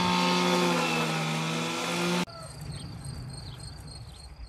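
A small engine running with a steady drone, its pitch shifting slightly, that cuts off abruptly about two seconds in. Then only faint outdoor air remains, with a light high chirping repeating about twice a second.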